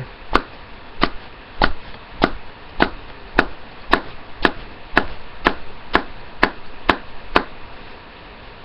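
A tin of dip (moist snuff) being packed: the index finger flicked against the lid with a twist of the wrist, a sharp snap about every half second, fourteen in all, stopping near the end.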